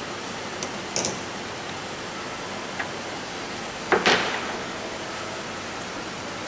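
Handling noise from a fibre comb sorter and its plates on a table: a few light clicks, then a short scraping clatter about four seconds in, over a steady background hiss.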